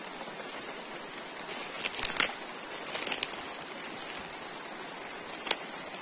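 Footsteps crunching through dry leaf litter on the forest floor, with crackling clusters about two and three seconds in and a single sharp snap near the end, over a steady hiss of rainforest background.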